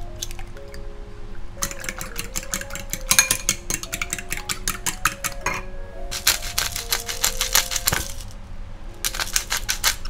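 A fork beating eggs in a glass bowl: fast clinking strokes against the glass in three bursts of a few seconds each, over soft background music.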